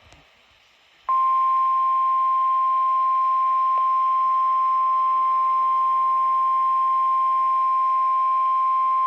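Weather radio sounding the National Weather Service's single-tone warning alarm, a steady continuous beep at one pitch that starts suddenly about a second in. It is the attention signal that comes before a severe thunderstorm warning message.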